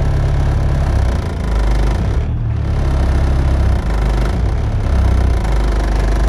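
Volkswagen Golf 2's 1.6-litre four-cylinder diesel engine idling steadily at about 1000 rpm, heard from inside the cabin.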